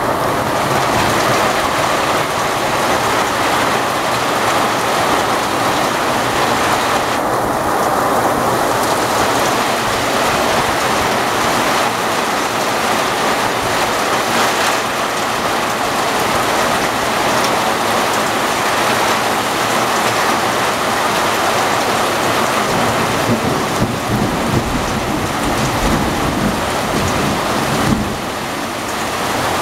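Heavy rain pouring steadily in a thunderstorm, a dense, even hiss of drops striking roofs and ground. Low rumbling comes in under the rain in the last few seconds.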